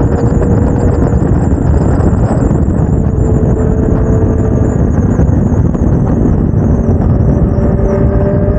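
Heavy wind buffeting on the microphone of a motorcycle at steady cruising speed, with the Suzuki GSX-R750's inline-four engine humming at a steady pitch beneath it.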